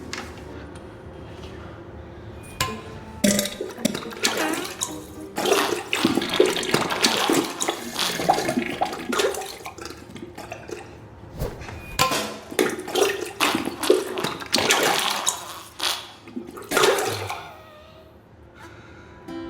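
Diarrhea sound effect: wet, irregular splattering and gushing bursts, starting about three seconds in and tailing off near the end.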